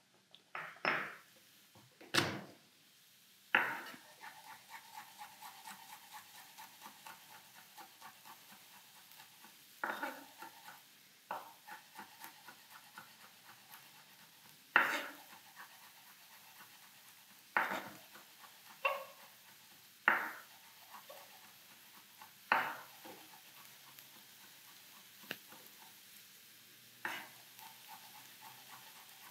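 A knife mincing a garlic clove on a wooden cutting board: runs of quick light taps, about three or four a second, broken now and then by a louder knock of the blade on the board.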